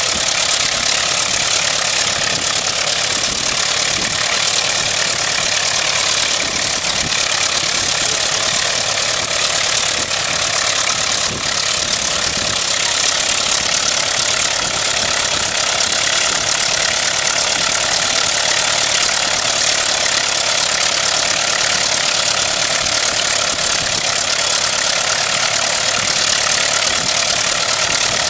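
Reproduction 1909 Wright Military Flyer's water-cooled four-cylinder engine running steadily, turning the aircraft's twin chain-driven propellers.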